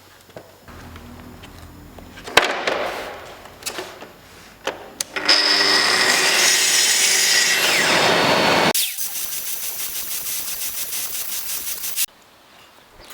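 Woodworking tools cutting wood in a workshop, in several short takes. There is a sharp knock, then a loud machine cut lasting about three seconds, then a rapid, even rasping that stops abruptly.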